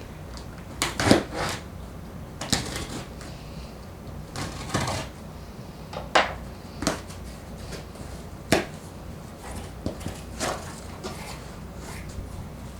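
A small cardboard shipping box being cut open and handled: irregular scrapes, rips and knocks of a blade through packing tape and cardboard, about ten separate sounds spread a second or so apart.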